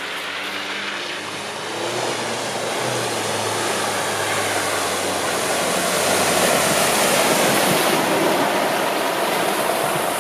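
Volkswagen T6 van driving: a low engine hum fades out over the first few seconds, while a steady rushing of tyre, road and wind noise grows louder.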